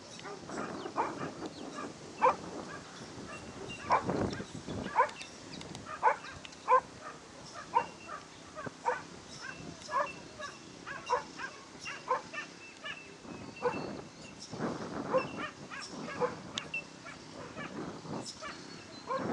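A dog barking repeatedly in short, sharp barks, roughly one every half second to a second.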